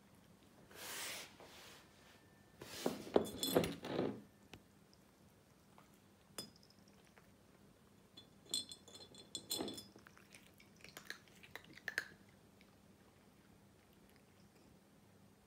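A small glass jar clinking and rattling as a cat paws at the dry treats inside it, in several short bursts of clicks and chinks with pauses between.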